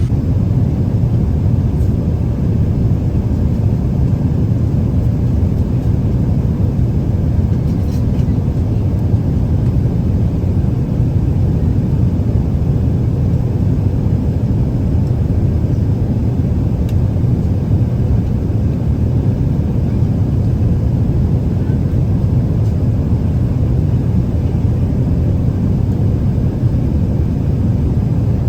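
Steady low cabin noise of a Boeing 777 in flight, the engines and airflow over the fuselage heard from an economy window seat, unchanging throughout.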